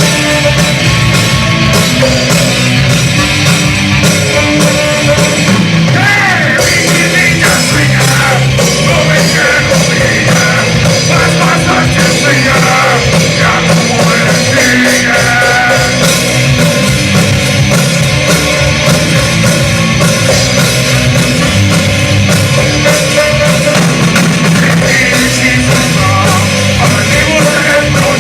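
A rock band playing a loud song, with a singer's voice over the instruments.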